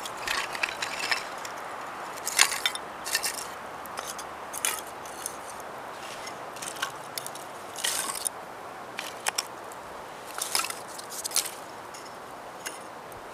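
Dry split kindling sticks and small branches clacking and clinking against each other as they are stacked by hand into a teepee, in irregular light knocks, over a steady faint hiss.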